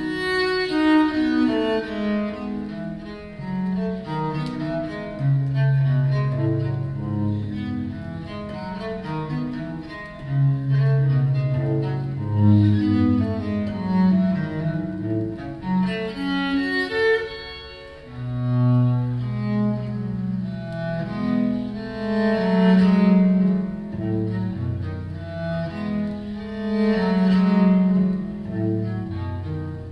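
Viola da gamba music played from a vinyl LP through large horn loudspeakers: a bowed low-string melody over long sustained bass notes.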